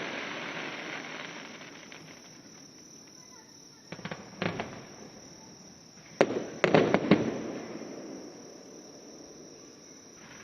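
Aerial fireworks shells bursting: a fading rumble at first, then a few sharp bangs about four seconds in and a louder cluster of bangs around six to seven seconds, each trailing off in a long rumble. Crickets chirp faintly as the rumble dies away.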